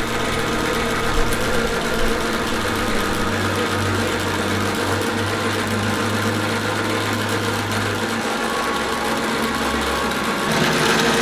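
Small electric blower on the steam locomotive's chimney running with a steady motor hum, drawing the fire while the boiler raises steam. Its lowest hum drops in pitch about eight seconds in.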